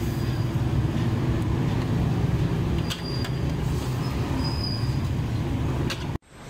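A steady low rumble with a few sharp metallic clicks of a long ladle against a wok. The sound cuts off suddenly near the end.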